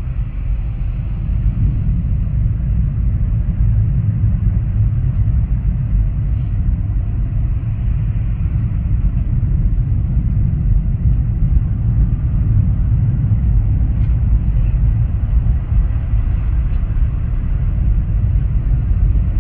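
Automatic tunnel car wash heard from inside the car's cabin: a steady low rumble of water spray and brushes working over the body.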